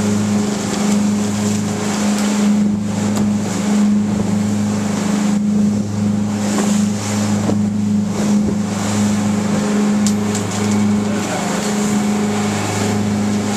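Charter fishing boat's engine running at a steady, even drone while the boat is under way, with wind and water rushing past.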